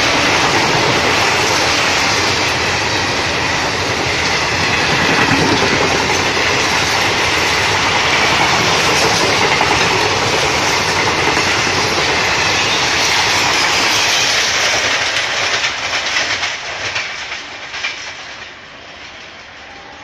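Express passenger train of blue coaches running past close at speed: a loud, steady rush of wheels on rails with clickety-clack over the rail joints. The noise dies away about three-quarters of the way through, with a few last clicks, as the tail of the train passes.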